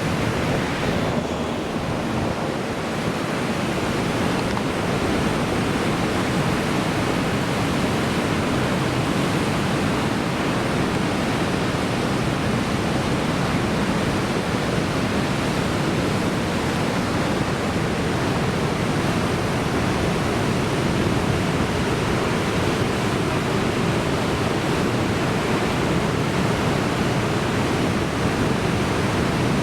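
Heavy surf breaking on the shore in a large typhoon swell: a steady, continuous rush of waves, with wind mixed in.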